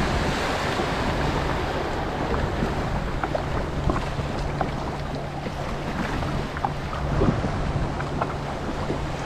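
Steady low hum of an idling watercraft engine under a wash of wind and lapping water, with scattered small clicks and taps.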